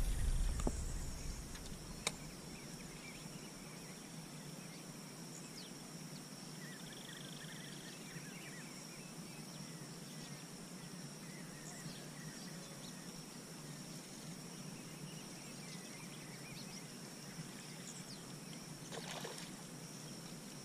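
Quiet open-water ambience with a faint, steady high-pitched hum. A short noisy burst at the start fades over about a second, a single sharp click comes about two seconds in, and a soft swell of noise rises near the end.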